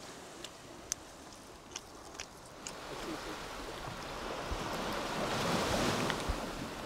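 Gentle surf washing on a sandy shore, a steady hiss that swells about five seconds in. A few small sharp clicks sound over it in the first three seconds and once or twice near the end.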